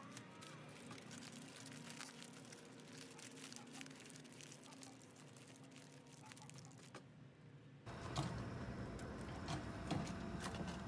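Faint crinkling and rustling of aluminium foil being folded and pressed closed by hand. About eight seconds in, the sound changes to a louder, fuller background with a few clicks and knocks.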